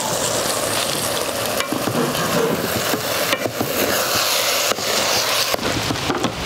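Ripe banana pieces in a spice tempering sizzling in a metal pot as a spatula stirs them, with a few sharp scrapes of the spatula against the pot.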